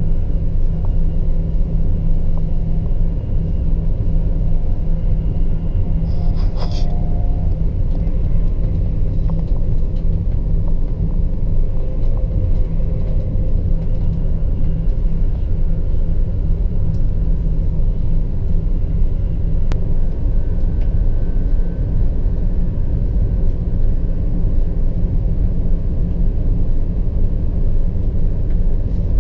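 ICE 1 high-speed train running at speed, heard inside the passenger car as a steady low rumble. A short burst of higher noise cuts in about six seconds in.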